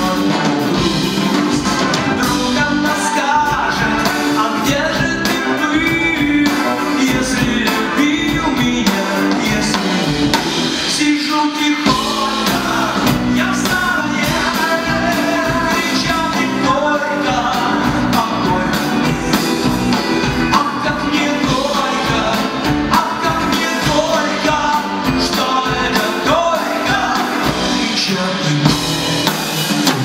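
Live pop-rock band playing a song: a lead vocal over electric guitars, bass guitar, keyboard and drum kit.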